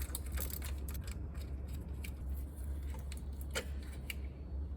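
Irregular light clicks and rattles of hands and tools working a coil-on-plug ignition coil loose from the engine, over a steady low hum.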